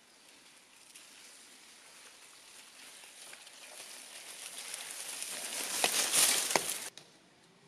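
Mountain bike tyres rolling and crackling over dry fallen leaves and dirt, growing louder as the bike approaches and rushes past close by, with two sharp knocks as it passes. The sound cuts off suddenly near the end.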